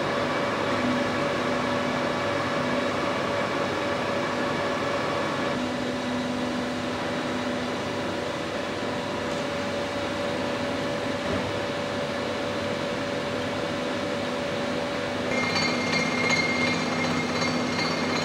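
Steady hum of machine-shop machinery running, with several steady tones over a noisy bed. The tones shift about five seconds in, and about fifteen seconds in a higher whine joins.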